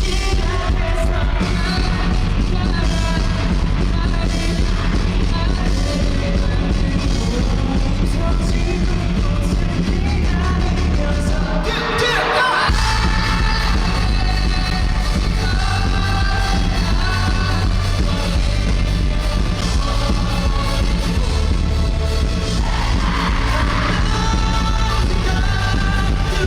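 A rock band playing live with a singer, drums and bass driving steadily. About halfway through the band drops out for a moment, then comes back in.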